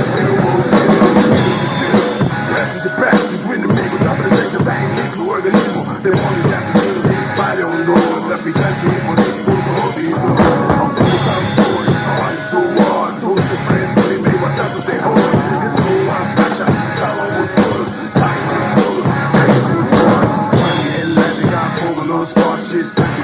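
Drum kit played along to a rock backing track in an instrumental passage, with cymbal strikes keeping a steady beat of about two a second.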